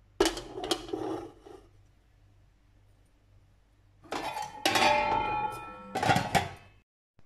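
Metal clatter of a cake tin being set down inside a large stainless-steel pot, then the pot's metal lid being put on and clanking against the rim, with several sharp strikes and a ringing tone that cuts off suddenly near the end.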